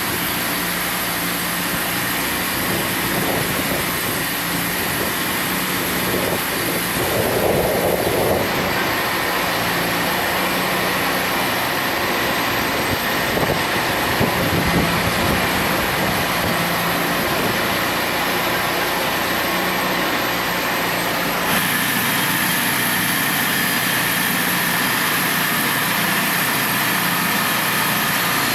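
Wood-Mizer portable band sawmill running steadily under power, a continuous engine and machine noise with two abrupt shifts in sound.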